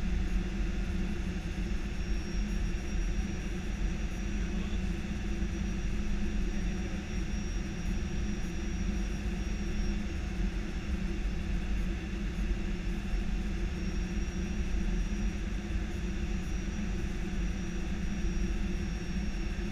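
Steady cockpit noise of an Airbus A319-115 on approach: an even low rumble and hum, with a faint high whine that comes and goes for several seconds at a time.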